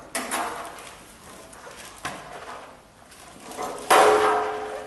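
The sheet-metal access panel on the back of a welding fume extractor being unlatched and opened: two clicks, then about four seconds in a sudden loud metallic sound with a ringing tone that fades over about half a second.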